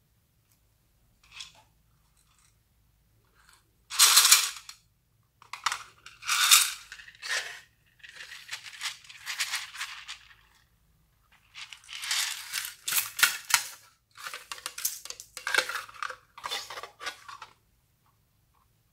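A plastic storage case handled, opened and closed, with loose sequins and small plastic beads rattling inside it in a series of irregular bursts.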